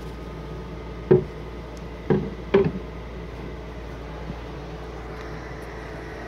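Three short dull knocks, about one second in, about two seconds in and again half a second later, over a steady background hum.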